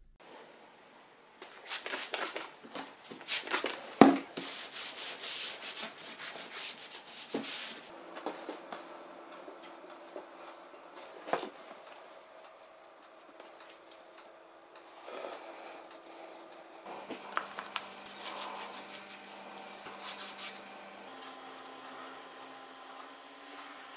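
Repeated rubbing and scraping strokes with a sharp knock about four seconds in. The strokes are densest in the first few seconds and come back near the end, with a faint steady hum underneath in the second half.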